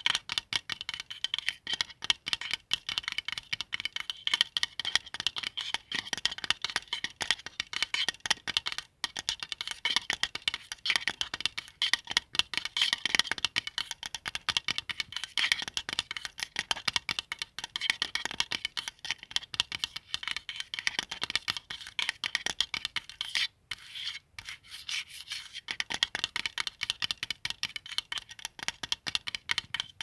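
Fingernails tapping and scratching rapidly over the face of a Qibla compass: a dense run of fast clicks and scrapes with a couple of brief pauses.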